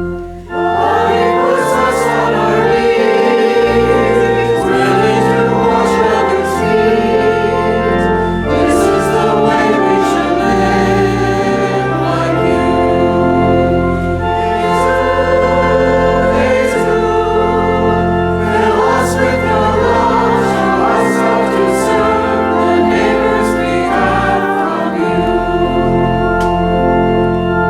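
Choir singing with organ accompaniment, in sustained chords over held bass notes.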